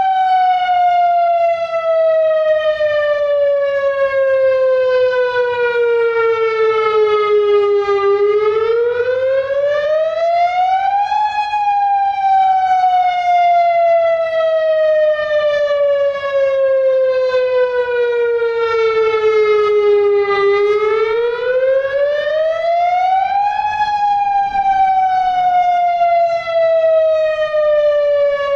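Federal Signal DSA electronic outdoor warning siren sounding its attack (wail) signal. The tone sweeps up quickly twice, then slides slowly back down each time, a cycle of about twelve seconds.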